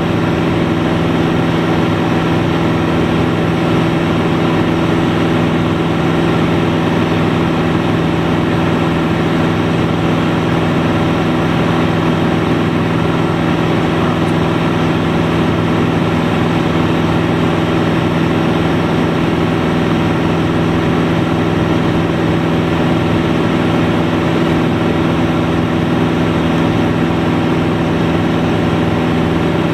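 Single-engine light aircraft's engine and propeller running steadily in flight, heard from inside the cockpit: an unchanging drone with a steady low hum.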